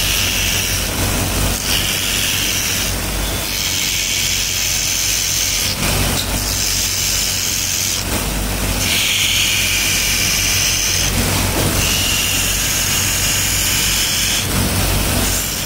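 Steel knife blade being ground against a spinning wheel on a motor-driven shaft: a steady motor hum, with a high hissing grind each time the blade is pressed to the wheel, about six passes of one to two seconds with short breaks between.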